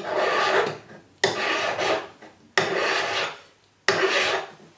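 Bastard-cut hand file worked across a cast metal ring in four strokes about a second and a quarter apart, each lasting about a second. It is smoothing away the spot where the casting sprue was cut off the lost-wax ring.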